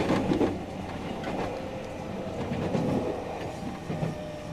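Onboard running sound of a JR Central 313 series 1100-subseries electric multiple unit: wheels clacking over rail joints over a steady low running hum, with a faint steady whine coming in near the end.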